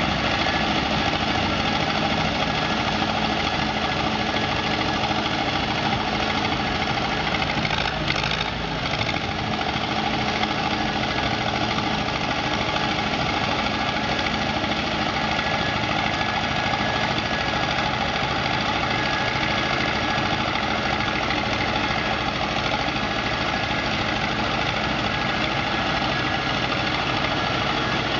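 Soviet DU-47B road roller's engine running steadily, at idle or a constant low speed, with a brief dip in level about eight seconds in.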